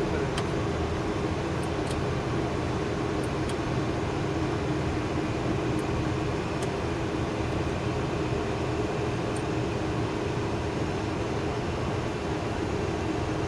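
Steady flight-deck noise of a Boeing 737-200 climbing out after takeoff: air rushing past the cockpit and the hum of its Pratt & Whitney JT8D engines, unchanging throughout, with a few faint ticks.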